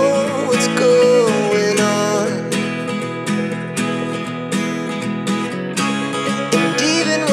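Background music: strummed acoustic guitar with a single wavering melody line over it that fades in the middle and returns near the end.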